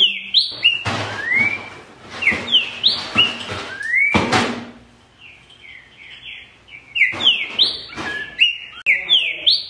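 A green-winged saltator (trinca-ferro) singing loud phrases of quick, sharply rising whistled notes, in two bursts separated by a softer pause. A brief noisy burst comes about four seconds in.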